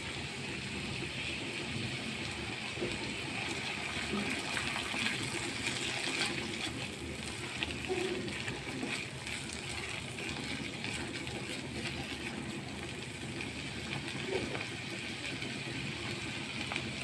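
Onion-and-spice masala frying in mustard oil in a non-stick pan, with white mustard paste being stirred in with a silicone spatula: a steady sizzling hiss with faint stirring scrapes.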